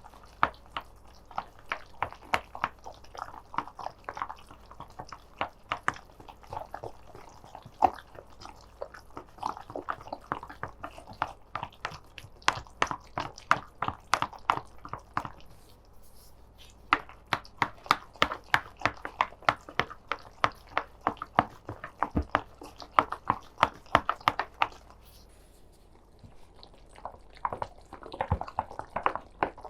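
Wet, sticky squelching and clicking of chicken nugget mixture being mixed, in dense irregular strokes with a short lull about two thirds of the way through.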